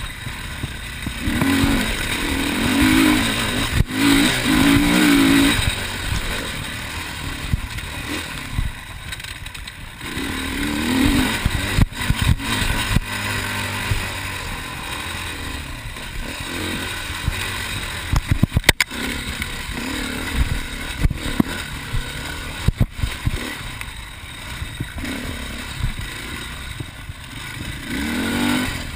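Enduro dirt bike engine revving up and easing off in repeated surges as it is ridden over a rough dirt trail, with several sharp knocks and clatter along the way.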